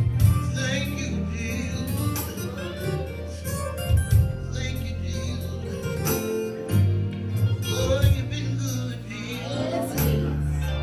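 Live gospel music: a man sings over sustained low keyboard or organ notes, with sharp percussion hits every few seconds.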